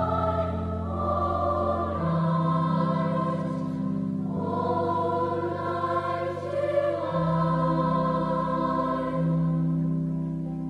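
Choral music: a choir singing slow, sustained chords, the harmony shifting about every two to three seconds.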